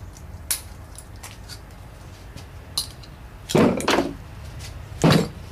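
Metal transmission parts and hand tools clinking lightly as they are handled, then two heavier metal clunks past midway, about a second and a half apart.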